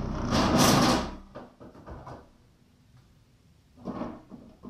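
Household furniture and objects being shifted around a wooden table: a loud scraping rush about half a second in, a few light knocks after it, and another short scrape near the end.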